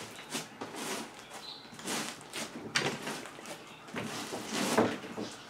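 Huge batch of floam slime, glue slime packed with styrofoam beads, squeezed and pressed by hand into a ball: irregular squishing with clicks and bubble pops, with two louder squishes about three and five seconds in.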